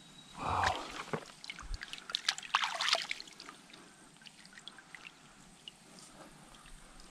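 Water splashing and trickling: a dense run of small splashes for the first three seconds, then a few scattered drips.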